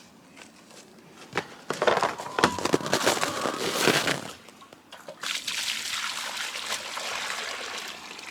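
Water sloshing and splashing into a rubber livestock water bowl, then pouring in steadily from about five seconds in.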